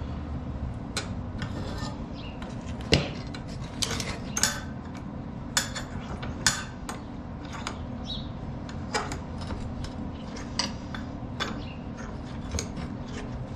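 Pieces of steel clinking and knocking irregularly as they are handled and set in place, a dozen or so sharp metallic clinks, some ringing briefly, over a steady low hum.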